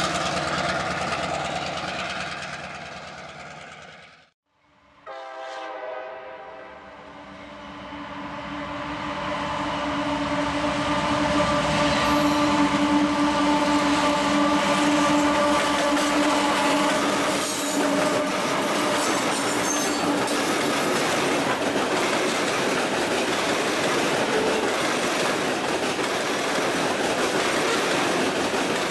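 Freight diesel locomotive's multi-chime air horn sounding a long blast of several steady notes that cuts off about two thirds of the way through, as a loaded coal train approaches. Then the loaded coal hopper cars roll past with a steady rumble and clacking of wheels over rail joints. At the very start a passing locomotive's diesel engine runs and fades out just before a brief gap.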